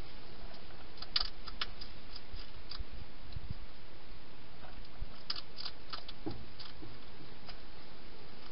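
European hedgehog crunching food in a plastic feeding box: two spells of quick, sharp clicking chews, one about a second in and another about halfway through, over a steady hiss.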